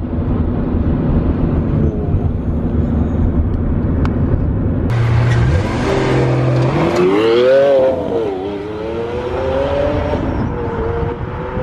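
Lamborghini Aventador's V12 engine running loud at speed in a road tunnel. After a cut about halfway through, it revs up with a rising pitch, dips, then holds a steady higher drone.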